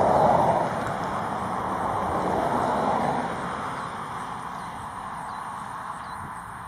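Road traffic passing: a vehicle's rushing tyre and engine noise swells right at the start and again a couple of seconds in, then fades away.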